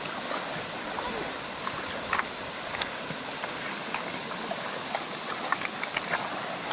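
Shallow river rushing steadily over stones in a strong current, with scattered small splashes of feet wading through the water.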